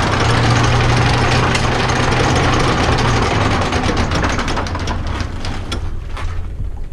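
Catamaran's anchor windlass paying out chain while the anchor is set: a steady motor hum with chain rattling, the hum stopping about three seconds in.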